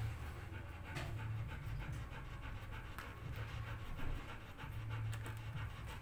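A dog panting steadily over a low hum.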